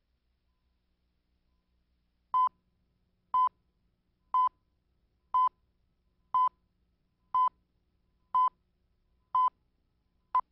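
Nine short electronic beeps at one steady pitch, about one a second, starting roughly two seconds in after near silence; the last beep is shorter.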